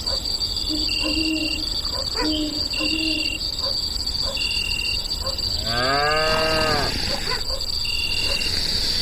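A cow moos once, about six seconds in, a single arching call lasting about a second. Under it run a steady high whine and short high beeps repeating about every second and a half.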